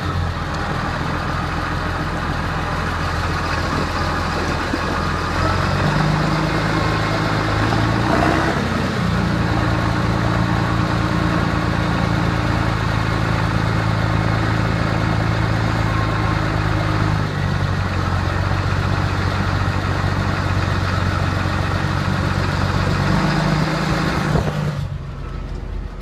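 Massey Ferguson 6499 tractor's six-cylinder diesel engine running, heard from inside the cab. Its engine speed steps up and down several times. Near the end the sound turns duller.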